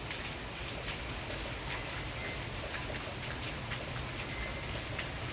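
Steady rain falling, with scattered sharper taps of individual drops.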